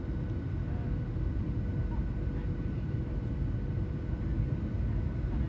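Steady low rumble of a moving vehicle heard from inside its cabin, with a few faint steady tones above it.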